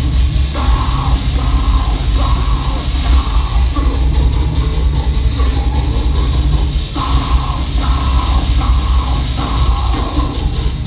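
Death metal band playing live and loud: a drum kit with a pounding bass drum and cymbals under distorted electric guitars chugging through a riff that stops and restarts in short blocks.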